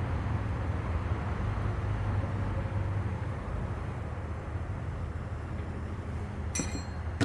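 Steady low hum and background rumble, with one short sharp click about six and a half seconds in.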